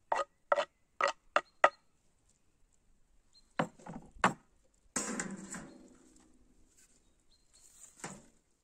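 Hand food preparation for a bulgur salad: a run of regular strokes, about two a second, that stops under two seconds in. A few separate knocks follow, then a louder clatter about five seconds in that rings out briefly, and one more knock near the end.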